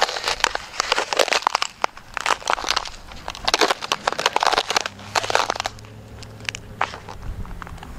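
Footsteps crunching on crusted snow and ice, a quick run of crunches that thins out after about five seconds.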